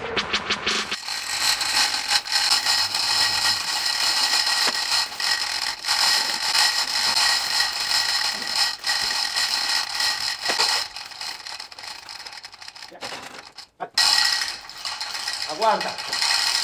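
A ratchet mechanism clicking rapidly and almost continuously, with a short break near the end before it starts again.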